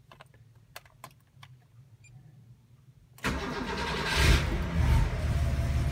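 A few faint clicks, then about three seconds in the air-cooled flat-six of a Porsche 911 Carrera 3.2 is cranked and catches on a cold start, flaring briefly before settling into a steady idle.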